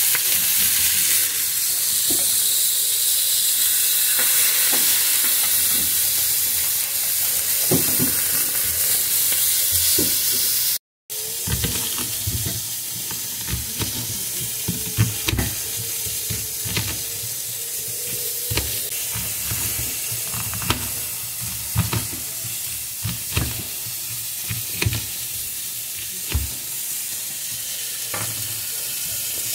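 Minced-meat burger patties sizzling loudly on a hot grill pan. After a cut about eleven seconds in, a knife slicing an onion on a wooden cutting board: irregular knocks of the blade on the board, about one a second, over a steady low hum.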